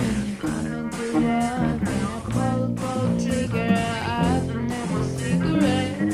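Teen rock band playing a pop-rock song: a girl sings the melody over drum kit, electric bass and acoustic guitar, with a keyboard joining in the video partway through.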